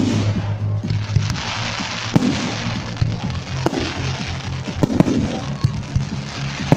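Fireworks display: shells bursting in a string of sharp bangs, roughly one every second or so, with crackling in between.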